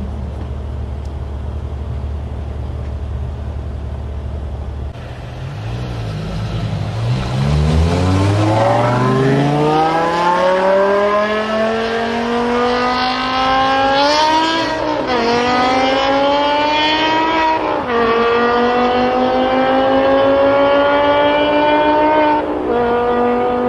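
BMW M5 E61 Touring's 5.0-litre V10 through a KKS race exhaust: a steady idle, then a hard launch with the pitch climbing through each gear and dropping sharply at every upshift, three upshifts in all.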